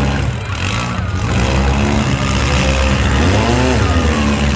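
Demolition derby cars' engines running, with one revving up and back down about three seconds in.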